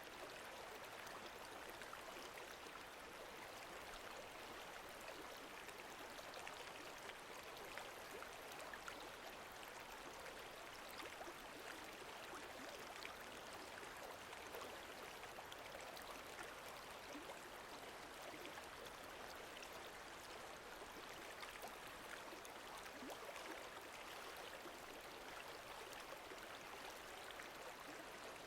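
Quiet, steady lake water lapping gently, a soft wash dotted with many tiny splashes and trickles.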